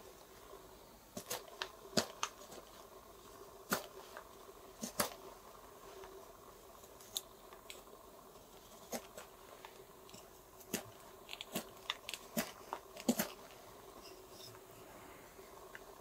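Schrade F57 neck knife slicing shavings off a wooden stick: irregular short, crisp cuts, several in quick succession, then pauses.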